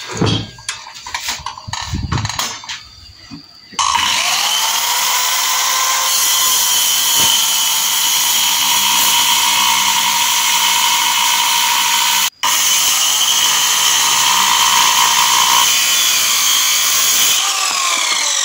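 Handheld JLD electric circular saw ripping a thick wooden board lengthwise. A few seconds of knocks from handling come first, then about four seconds in the saw starts suddenly and cuts with a loud, steady whine and hiss. The sound breaks off for an instant around twelve seconds in, and its pitch slides down near the end.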